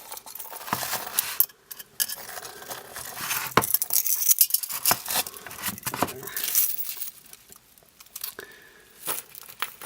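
Handling noise of a small metal pocket watch being turned over in the hands: scattered light clicks, clinks and rubbing, quieter in the last few seconds.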